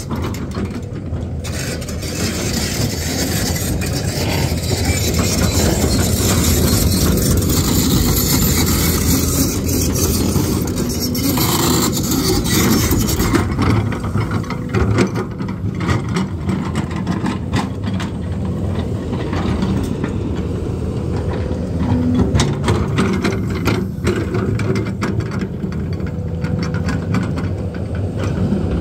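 Excavator's diesel engine running steadily under working load, getting louder for a stretch early on, with scattered knocks as the machine grades and scrapes the ground.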